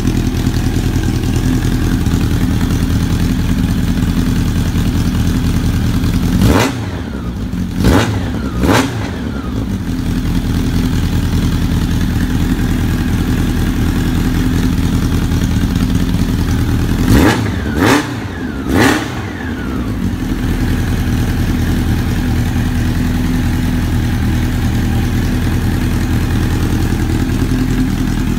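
Honda CB750 cafe racer's air-cooled inline-four engine idling steadily through a short aftermarket silencer, with two sets of three quick throttle blips, one about a quarter of the way in and one just past the middle.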